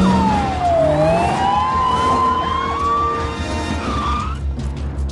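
Police car siren wailing: the pitch falls for about a second, then climbs slowly for a couple of seconds, with a short wavering tone near the end, over a low steady rumble.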